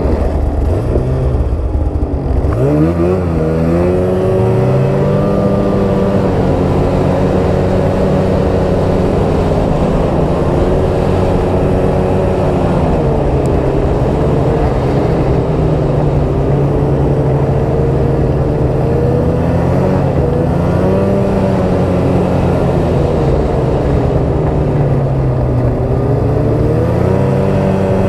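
2018 Polaris XCR 800 snowmobile's two-stroke twin engine running under way on the trail. It revs up sharply about three seconds in, then holds mostly steady, easing off and opening up again a few times.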